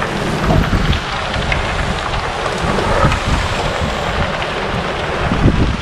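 Many bicycle tyres crunching over loose gravel as a pack of riders rolls past, with wind buffeting the microphone in a low rumble and a few louder swells.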